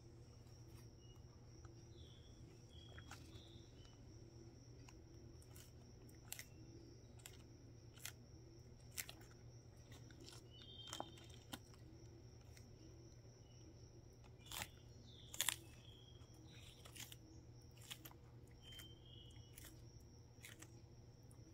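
Hermann's tortoise biting and tearing crisp lettuce leaves: irregular crunchy snaps, the loudest about two thirds of the way through, over a low steady hum.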